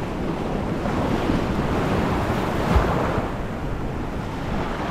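Ocean surf breaking and washing in, swelling and easing, with wind buffeting the microphone. There is a brief low thump a little before the middle.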